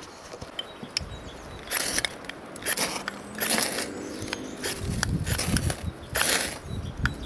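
A ferro rod scraped hard with a striker again and again, about once a second, throwing sparks into a bundle of wood shavings to light a fire.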